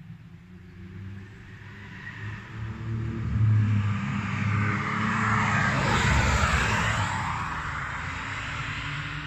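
A classic car's engine at speed, passing close by: it builds as the car approaches, is loudest a little past the middle as it goes by with a drop in pitch, then fades as it pulls away.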